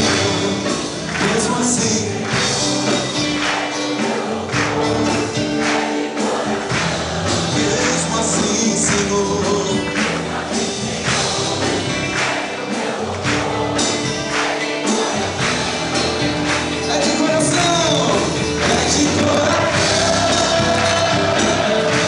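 Live Portuguese-language gospel worship song: a band of acoustic and electric guitar, keyboard, congas and drum kit keeping a steady beat, with sung vocals over it.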